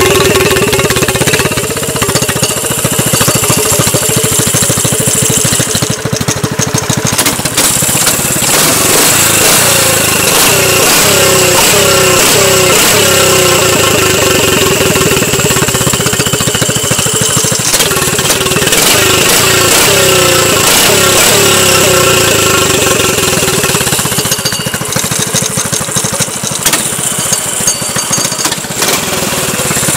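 Subaru VK400 kart engine running, heard close to its exhaust silencer, with the revs rising and falling repeatedly through the middle as the throttle is worked.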